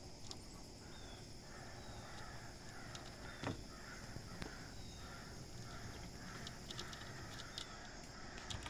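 Faint series of harsh bird caws repeating several times a second, with a single sharp knock about three and a half seconds in.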